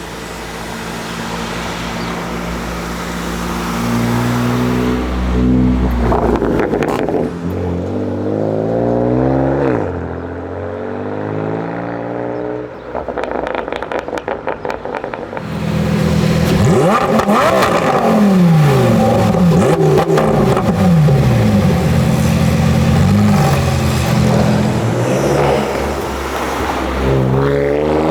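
Performance car engines accelerating hard and revving, the pitch climbing and dropping again and again. A rapid string of exhaust crackles and pops comes about halfway through, after which the loud revving resumes.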